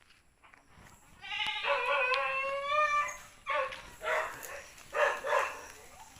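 A goat bleating: one long, wavering call of nearly two seconds, followed by four short calls.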